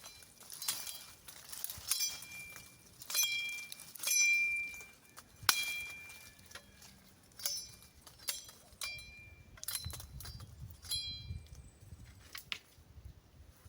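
A blade chopping sticks: about a dozen sharp strikes at an uneven pace, roughly one a second, each with a short metallic ring. The hardest strike comes about halfway through.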